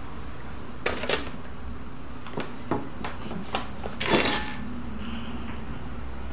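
Small metal object handled in the hands, giving a series of sharp clinks and clicks, with a louder clatter about four seconds in, over a steady low hum.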